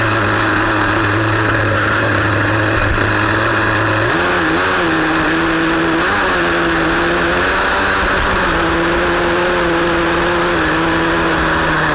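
Small nitro glow engine of a radio-controlled car running with a steady buzz, its pitch stepping up about four seconds in and wavering briefly a few times after.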